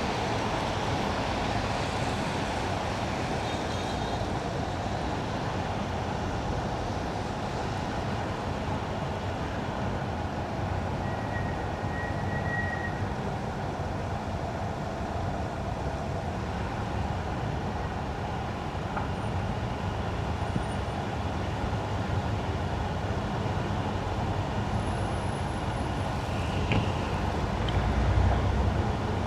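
Steady road noise of a car driving on wet winter asphalt: tyres on the wet road with a low engine and traffic rumble, which swells briefly near the end.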